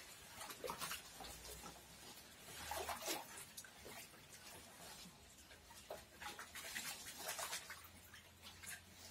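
Faint, irregular sloshing and splashing of water in a bucket as an orchid's root ball is worked by hand to wash out the old potting medium.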